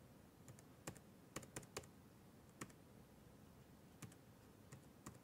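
Faint, scattered laptop keyboard key presses: about ten short clicks, bunched in the first two seconds and again near the end.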